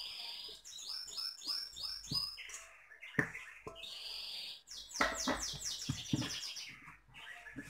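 A bird chirping in quick runs of short, high chirps, the second run faster than the first. A single knock about three seconds in, as the dough and steel mixing bowl are handled.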